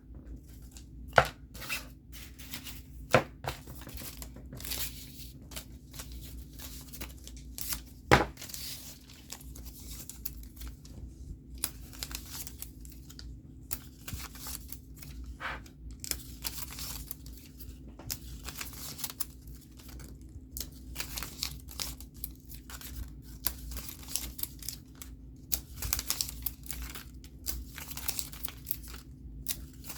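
Paper and sticker sheets being handled: scratch-off stickers peeled from their backing, with many short tearing and crinkling sounds, and four sharp knocks in the first eight seconds.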